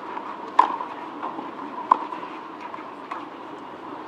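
Tennis rally: sharp pops of the ball struck by racket strings, three hits about 1.3 s apart, the third fainter, over steady background noise with a faint constant tone.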